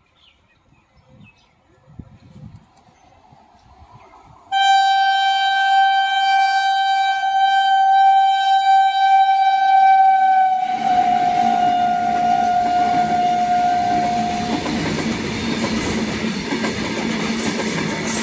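Indian Railways WAG-7 electric locomotive sounding one long horn blast that starts suddenly about four seconds in, its pitch dipping slightly as the locomotive draws level, then fading out. The freight wagons follow, their wheels rumbling and clattering on the rails as they roll past.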